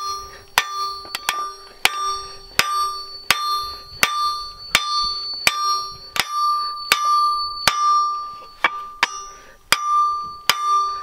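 Hand hammer striking the red-hot point of a steel pick on an anvil: steady blows about every two-thirds of a second, each leaving a ringing tone. The pick is being drawn out to a sharp point while hot.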